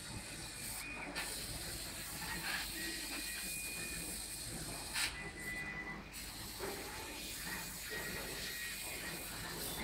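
Fabric laser cutting machine at work: a steady air hiss under short, intermittent whines from the gantry's motors as the cutting head moves, with a sharp click about five seconds in.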